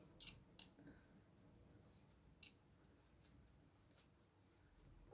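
Near silence, with a few faint brief clicks within the first second and another about two and a half seconds in, as fingers work through a short synthetic wig.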